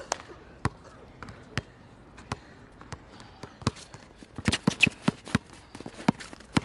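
Basketball dribbled on a hard outdoor court: single bounces spaced well apart, then a quick run of bounces about four and a half seconds in.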